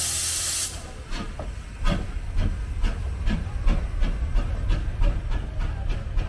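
Cockerill 503 steam tank locomotive: a steady hiss of steam from its open cylinder drain cocks stops under a second in. Then comes a series of exhaust chuffs, about two to three a second and quickening, as the engine pulls away.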